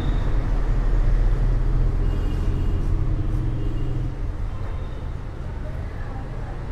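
Low, steady vehicle rumble, fading after about four seconds.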